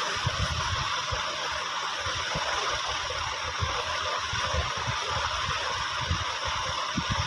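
Steady hissing background noise with irregular low rumbling thumps.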